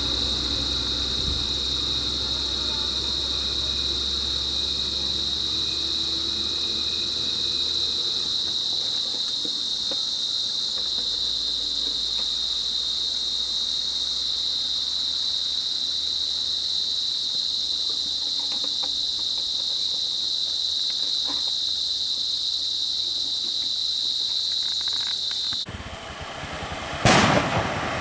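Steady high-pitched drone of insects, unbroken until it cuts off suddenly near the end. About a second later comes a single sharp, loud bang.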